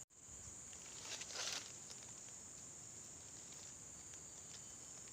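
Insects, crickets or similar, keeping up a steady high-pitched chorus, with a brief rustle about a second and a half in.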